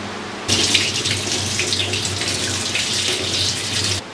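Kitchen tap running water over a hand rinsing small pieces of kudampuli (Malabar tamarind) above a stainless steel sink. The splashing rush starts about half a second in, stays even, and cuts off suddenly near the end.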